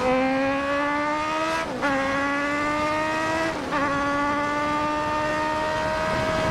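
Kawasaki Z900's inline-four engine accelerating through the gears. The pitch rises steadily and drops sharply at two quick upshifts, about two seconds and about three and a half seconds in, then climbs slowly again.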